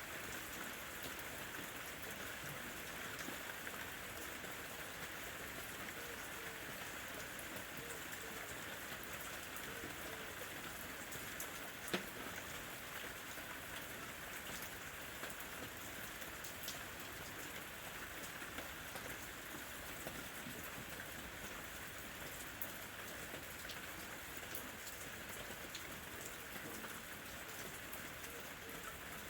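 Steady rain falling, an even hiss with individual drops ticking through it and one sharper drop hit about twelve seconds in. No thunder.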